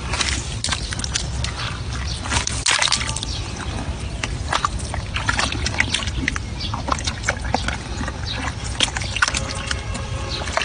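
Wet mud squelching and crumbling as a hand digs into a waterlogged earth bank, with many irregular wet clicks and crackles and muddy water sloshing. A steady low rumble runs underneath.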